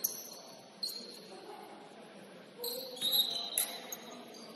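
Basketball sneakers squeaking on a hardwood gym floor: several short, high squeaks, the longest and loudest about three seconds in, with a sharp knock just after it.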